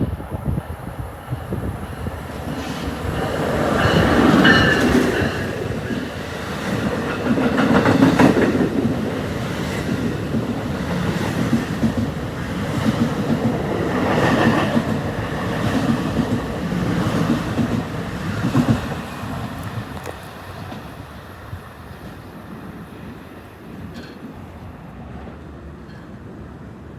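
NJ Transit MultiLevel double-decker train passing at speed, its wheels clattering over the rail joints. The sound builds over the first few seconds, swells and eases several times as the cars go by, and fades away after about twenty seconds.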